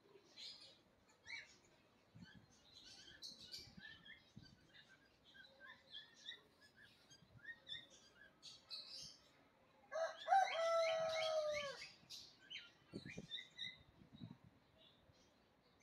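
Small birds chirping and tweeting throughout. About ten seconds in, a rooster crows loudly once, a single call of about two seconds that falls in pitch at its end.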